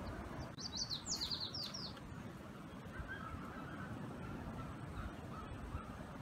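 A bird calling a quick run of about eight high, falling notes, followed by fainter, lower chirps, over a steady low rumble.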